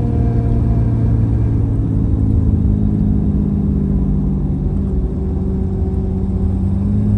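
6.7 Cummins diesel engine running with the Turbonator Hybrid VGT turbo's exhaust brake engaged, heard from inside the cab. Its note drifts slowly lower as the engine is held back.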